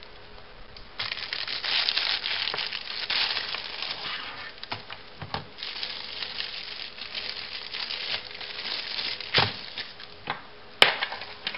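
Packaging rustling and crinkling as the contents of a keyboard box are handled, with a few sharp knocks, the loudest two near the end.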